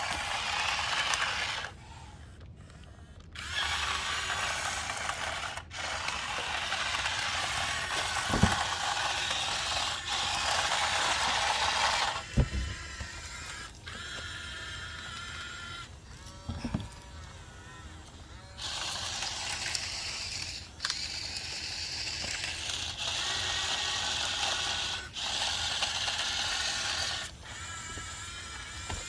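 Small geared motor whirring with a ratcheting gear noise, running in stretches of a few seconds that stop and start again.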